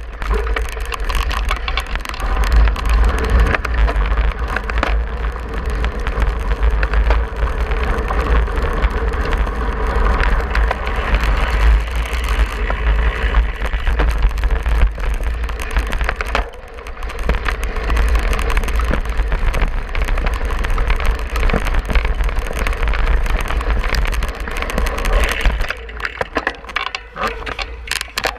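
Wind buffeting the microphone over the continuous crunch and rattle of a cyclocross bike's tyres and frame on rough dirt and grass at race speed, easing briefly a little past halfway.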